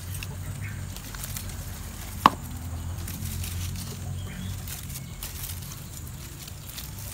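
Bonsai branches being handled by hand, with faint rustling and one sharp snap about two seconds in, over a low steady hum.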